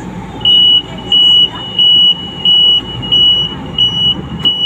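Light-rail train's warning buzzer beeping loudly and evenly, about seven short high beeps, roughly one every two-thirds of a second, over the low rumble of the train at the station platform.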